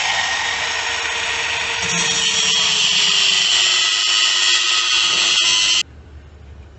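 Angle grinder with a thin cutting disc slicing into the steel muffler casing of a motorcycle exhaust: a steady, loud whine with the hiss of metal being cut, the pitch sagging slowly as the disc bites in. It cuts off abruptly about six seconds in.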